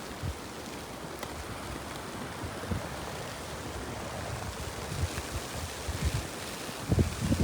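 Storm wind blowing steadily, with irregular low gusts buffeting the microphone that grow heavier near the end.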